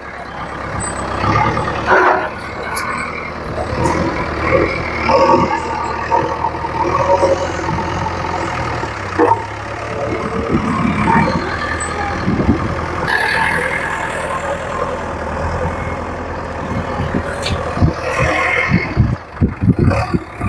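JCB 3DX backhoe loader's diesel engine running steadily, with scattered knocks.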